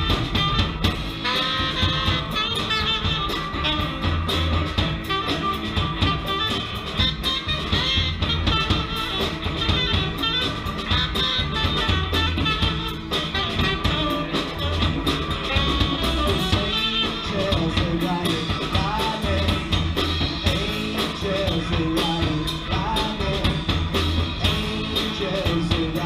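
Live band playing an upbeat tune: saxophone and trombone over electric guitars and a drum kit, with a steady beat.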